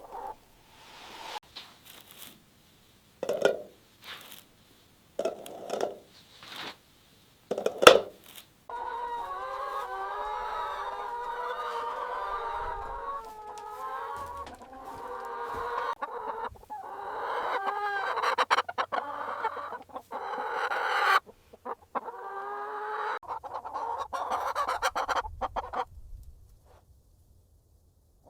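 Flock of chickens clucking. A few separate clucks come first, then many birds cluck over one another for about twelve seconds. After a short break there is another few seconds of clucking, and then it dies away.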